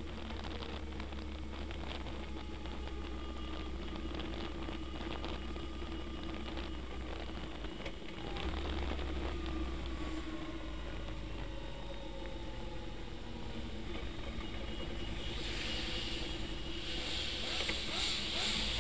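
Motorcycle engine running steadily while riding in traffic, heard from on the bike, its note falling slowly in the middle as it eases off. A hiss of wind or road noise grows louder near the end.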